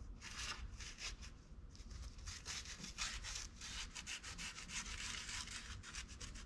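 Microfiber applicator wiped quickly back and forth over a coarse wrinkle-finish powder-coated intake manifold, applying ceramic coating: a rapid series of faint, short rubbing strokes.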